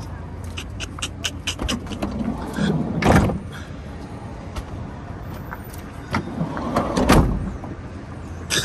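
A van's sliding side door run open on its rails about three seconds in and slid shut near the end, the closing the louder of the two. Sharp clicks of the handle and latch come before it, over a steady low hum.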